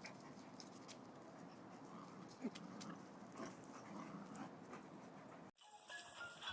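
A dog making faint, brief sounds over low background hiss, with one short sharp sound about two and a half seconds in. Near the end the sound cuts off abruptly and a different clip with steady tones begins.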